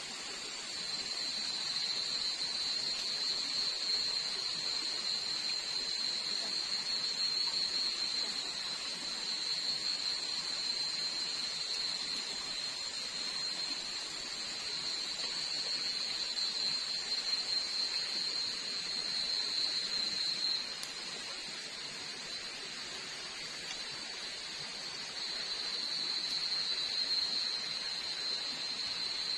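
Night insects in a forest keeping up a steady high-pitched drone over a soft hiss. The drone drops away about two-thirds of the way through and comes back near the end.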